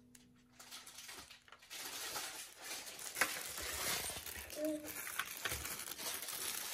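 Clear plastic packaging crinkling and small packaged items shifting and knocking in a cardboard box, with a few light clicks. It starts after a second or two of near quiet.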